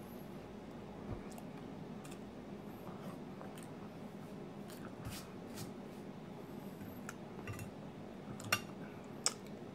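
Quiet eating sounds: a metal fork clicking and scraping against a china plate as it cuts into pancakes, with soft chewing. Two sharper clinks come near the end.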